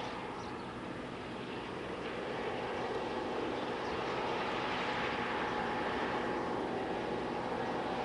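Deutz-Fahr Power Liner Climber combine harvester running while it cuts grain: a steady engine and machinery drone with a faint steady whine in it, growing a little louder from about three seconds in.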